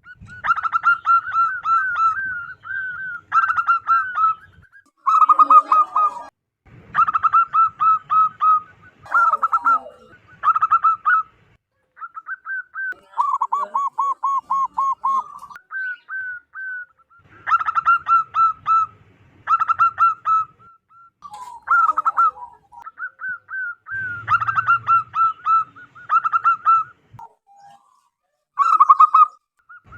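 Zebra dove (perkutut) singing loudly: repeated phrases of rapid, staccato cooing notes, each phrase a second or two long, with short pauses between them.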